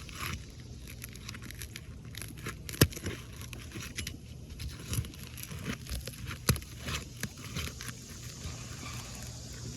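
A metal roofing tool being worked under asphalt architectural shingles: crackling, tearing and scraping as the shingle is loosened, with two sharp knocks about three and six and a half seconds in.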